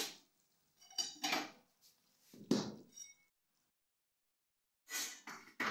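Clanks and knocks of a steel kadai and its metal ladle as the pan is lifted off a gas stove and set down on the counter. The knocks come one at a time, one with a short metallic ring, with a silent stretch of about a second and a half before a last few near the end.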